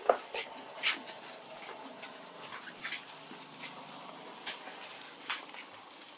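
Newborn long-tailed macaque crying in a series of short, high-pitched squeaks, irregularly spaced, about seven in all.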